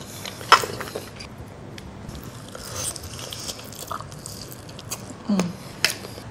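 A person biting into and chewing crispy fried chicken, with crunching and wet mouth sounds; a sharp crunch about half a second in is the loudest, with another near the end. A short hummed "mm" just after five seconds.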